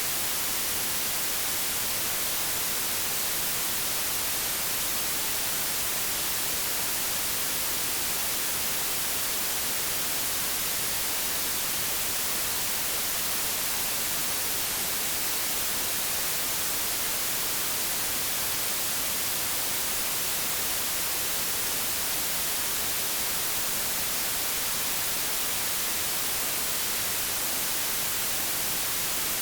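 Steady white noise: a constant, even hiss.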